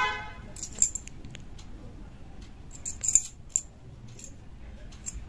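Small silver baby bangles clinking and jingling against each other as they are handled in the hand. There are a few sharp metallic clinks about a second in and a quick cluster around three seconds in.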